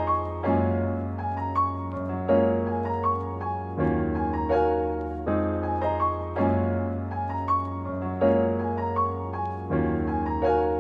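Outro background music: piano notes over held chords and a steady low bass, the chords changing every second or two.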